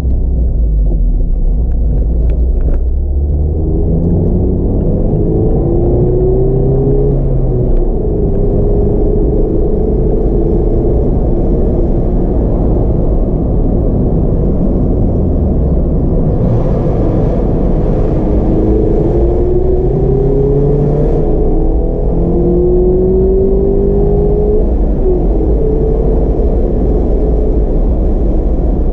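Mazda MX-5 RF's inline-four engine and tyre noise heard from inside the car while driving, the engine note climbing in pitch several times as it pulls through the gears. A little past the middle there are a few seconds of added hiss as the car passes through a short rock tunnel.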